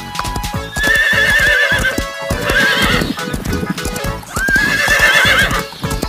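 Horses neighing: three loud whinnies with a wavering pitch, over background music, with hooves clip-clopping.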